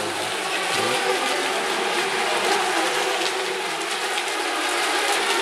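Several small electric ECO Mini class RC racing boats running at speed on the water, a steady hissing whine of their motors and propeller spray with no letup.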